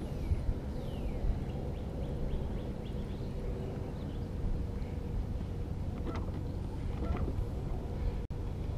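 Electric trolling motor running steadily on a small fishing boat: a low rumble with a faint steady hum, and a few light clicks about six and seven seconds in.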